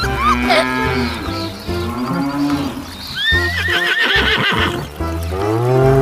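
A cow mooing over cheerful background music with a steady beat; a long moo swells near the end.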